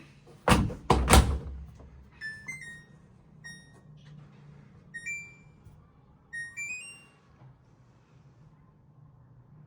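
Two heavy thunks of an appliance door or lid being shut, then a string of short electronic beeps and a brief rising chime from the appliance's control panel as buttons are pressed.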